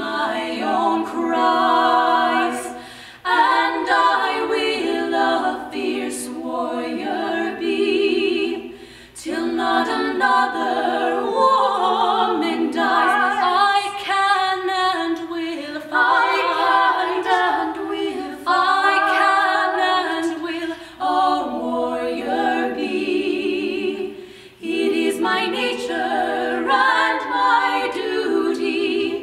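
Three female voices singing a cappella in harmony, with one voice carrying the line alone for a while mid-passage. The phrases break off briefly about three, eight and twenty-four seconds in.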